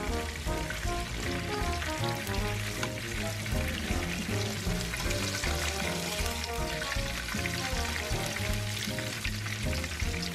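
Breaded shrimp sizzling and crackling steadily in hot oil in a frying pan, over light background music with short repeated notes.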